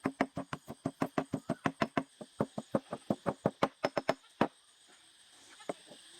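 Turkey call worked in a rapid run of short clucks, about six a second, that stops abruptly about four and a half seconds in, followed by a few faint clicks.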